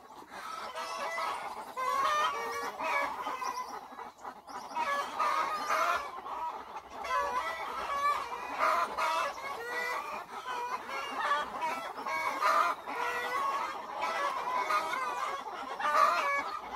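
Chickens clucking, many short overlapping calls that go on without a break.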